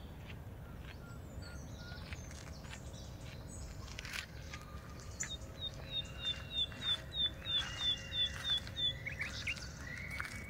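Birds singing, with several whistled calls; about five seconds in, one bird gives a quick run of about a dozen short repeated chirps. A steady low rumble sits beneath.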